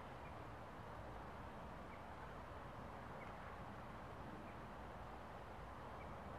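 Faint steady outdoor background hiss with a low rumble, broken by soft short high peeps about every second or so.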